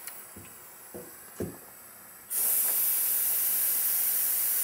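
A compressor-fed HVLP spray gun spraying water: after a few soft knocks, a loud steady hiss of air and mist starts suddenly about two seconds in. This is a test spray in the middle of raising the air pressure in small steps, close to the setting that gives an even fan.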